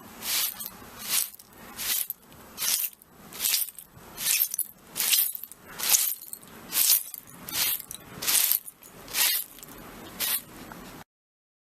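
Broom sweeping broken glass shards in about a dozen even strokes, a little over one a second, each a crunching scrape of the pieces. The sweeping stops abruptly near the end.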